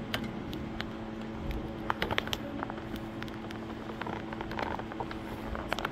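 A steady low hum, with many small clicks and knocks scattered through it, a cluster of them about two seconds in.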